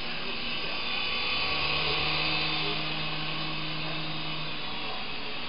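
Mini indoor RC helicopter of the Syma S107G type in flight, its small electric motors and coaxial rotors whirring steadily, growing a little louder in the middle.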